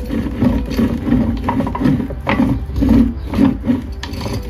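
Gears and shaft bearings of a 2009 Subaru Justy five-speed manual transmission being turned back and forth by hand in the open case: a rough, rhythmic rumble of meshing gears, about two to three pulses a second, with light metal clicks. The shaft is being worked to find a noisy bearing, and it feels as if it catches.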